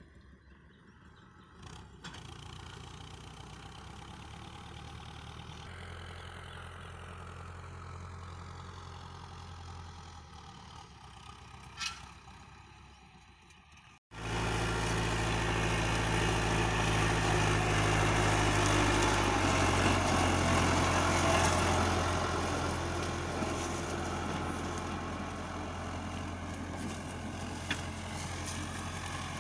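Iseki 7020A tractor's diesel engine running steadily as it pulls a disc harrow. It is faint and distant at first, then much louder from about halfway, with a wide rushing noise over the engine.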